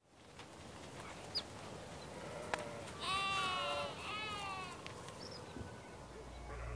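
An animal bleating twice, in a wavering goat- or sheep-like call, about three and four seconds in, over a faint steady hiss. Music begins near the end.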